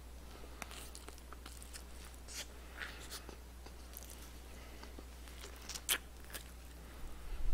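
Close-miked chewing and biting of fried chicken: scattered small crunches and mouth clicks, one sharper crunch about six seconds in, over a steady low hum.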